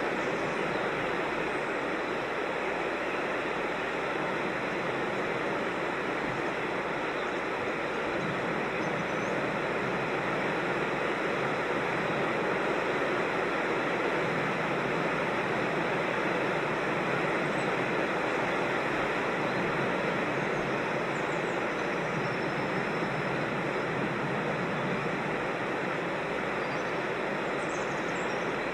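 Steady rush of creek water over rocks, a dense even noise that does not change in level. A few faint bird chirps come near the end.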